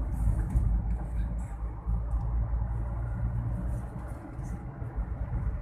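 Steady low road rumble of a car driving along, heard from inside the cabin.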